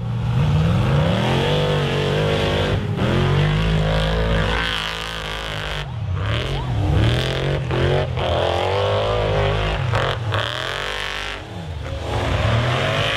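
Several V8 Formula Offroad race cars revving hard and accelerating, their engine pitch rising and falling again and again with the throttle. The sound breaks off abruptly a few times.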